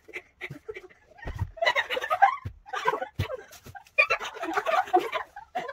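A young woman's laughter sped up to four times normal speed, coming out as rapid, choppy chattering bursts, with a couple of low thumps.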